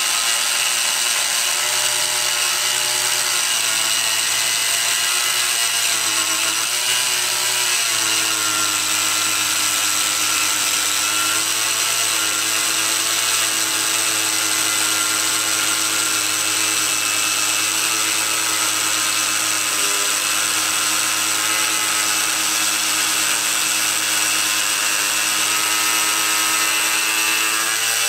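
Harbor Freight angle grinder with a cutoff wheel cutting through 3/16-inch steel. The motor whines steadily over a grinding hiss, and its pitch drops slightly about seven seconds in and holds there.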